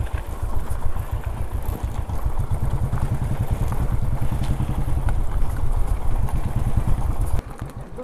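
Royal Enfield motorcycle engine running under way with a fast, steady low beat, then falling away sharply and going much quieter about seven seconds in.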